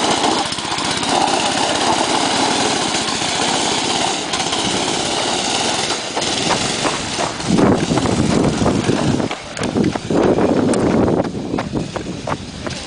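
Small engine of a Murray go-kart running as the kart pulls away over gravel, fading near the end as it moves off.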